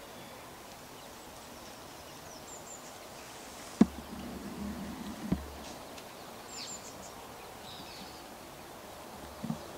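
Quiet open-air ambience with faint high bird chirps now and then. Two sharp knocks about a second and a half apart come a little before the middle, with a low hum between them, and a softer knock near the end.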